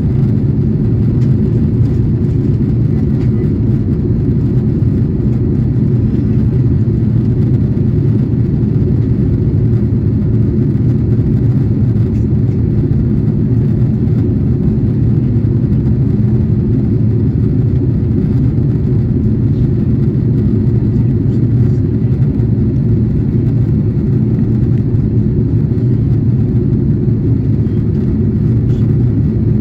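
Airbus A330-300 cabin noise during the descent: a low, steady rumble of the engines and the air rushing past the fuselage, with no change in pitch or level.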